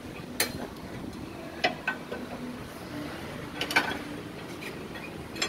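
A few scattered sharp metallic clicks and clinks, about four over several seconds, the first the loudest, above a faint steady low hum.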